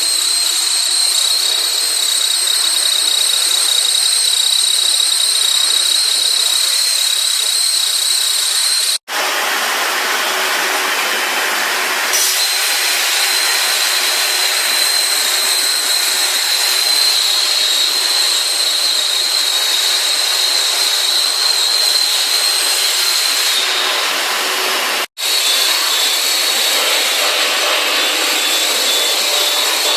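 Industrial metal-cutting machine running steadily with a loud hiss and a high, even whine. The sound drops out abruptly twice.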